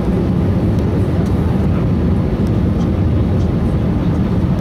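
Steady low rumble inside an Airbus airliner's cabin as it taxis: the jet engines at taxi power and the aircraft rolling along the taxiway, with a few faint scattered ticks.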